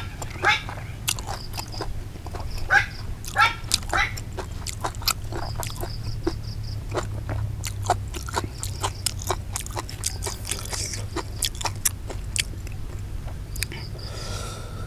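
Close-up eating sounds of a man chewing raw beef: wet chewing, lip smacks and a quick run of mouth clicks, over a steady low hum.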